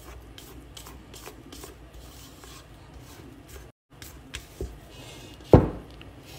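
Spatula scraping creamed butter and sugar around a stainless steel bowl, in soft repeated scrapes and small clicks, with one loud knock about a second before the end.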